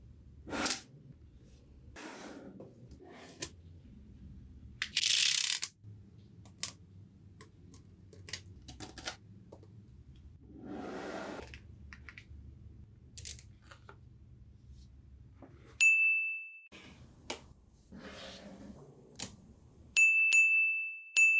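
Small magnetic balls snapping together in scattered sharp, coin-like clicks, with a few brief rustling scrapes between them. Near the end a high ringing ding sounds twice, the second time longer and loudest.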